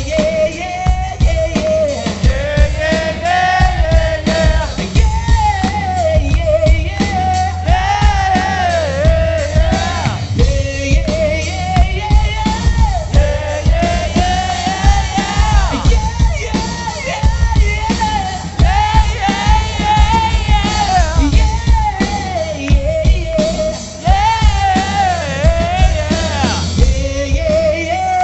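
Live rock band in concert: a lead singer sings over electric guitar, bass and drums.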